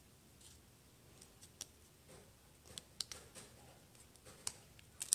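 Faint, scattered light ticks and rustles of a small paper tab and glue dots being handled and turned over by hand.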